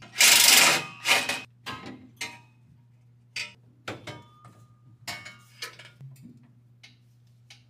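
Metal exhaust piping being handled under a car during an exhaust swap: a loud scraping clatter just after the start, then a series of short clanks and knocks as the pipe sections are worked loose and fitted.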